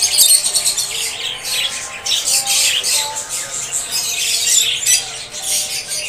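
A flock of caged lovebirds and cockatiels chattering and squawking: a dense, continuous chorus of many overlapping high-pitched calls.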